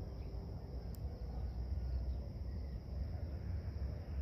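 Quiet outdoor background: a low, uneven rumble with a faint steady high hiss, and a single faint tick about a second in.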